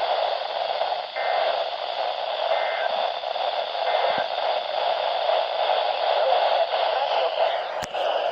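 Weather radio receiver hissing with steady static. Three faint short chirps come through about a second and a half apart, and a click sounds near the end.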